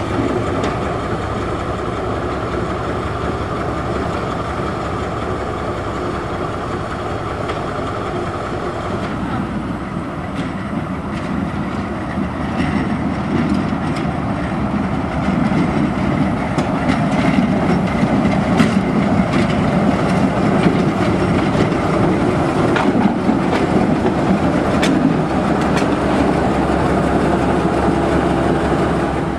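TU2 diesel-electric narrow-gauge locomotive running, its engine growing louder from about halfway through as it approaches and passes close by. A few sharp clicks from the wheels can be heard.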